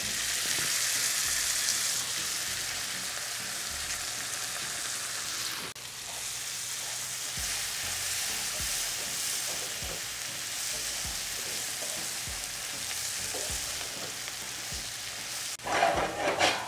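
Sliced red onions sizzling in a hot oiled skillet, a steady frying hiss that is a little louder for the first couple of seconds as lemon juice hits the pan. A wooden spatula stirring the onions adds soft scrapes and knocks, with a brief louder clatter near the end.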